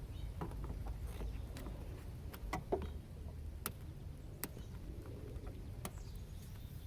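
Scattered sharp plastic clicks and taps, the loudest nearly three seconds in, as a plastic push-pin retaining clip is prised out of a 2004 Chevrolet Impala's cowl panel, over a low steady rumble.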